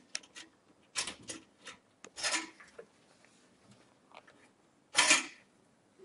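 Metal expansion-slot covers on the back of a PC case being pulled out by hand: a few sharp metallic clicks and scrapes, the loudest about five seconds in.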